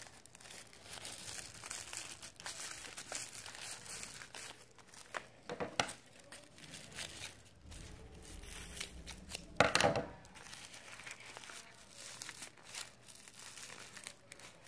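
Thin plastic bag and paper crinkling and crumpling as they are handled. The noise is irregular and crackly, with louder rustles about six seconds in and again, loudest, about ten seconds in.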